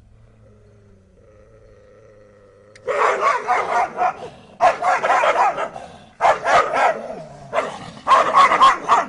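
Dogs barking in loud, rapid volleys of about a second each, separated by short pauses, starting about three seconds in after a faint low hum.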